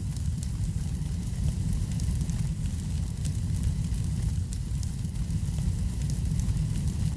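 Wood fire burning in a fireplace: a steady low rumble of the flames with frequent small crackles and pops.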